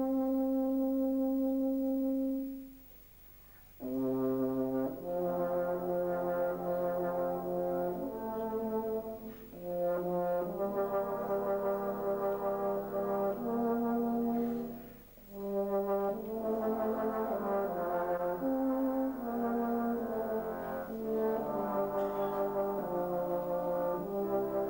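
Euphonium solo with brass band accompaniment. A single held note stops about two and a half seconds in; after a short pause the band comes back in with sustained chords under the solo line, with one more brief break about halfway through.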